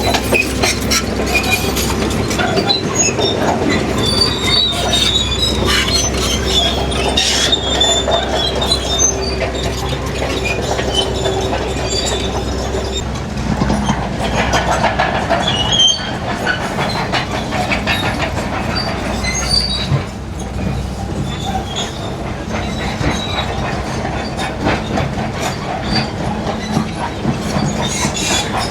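Crawler bulldozer at work: diesel engine running steadily under load while the steel tracks clank and squeal, with a busy run of metallic clanks and high squeaks throughout.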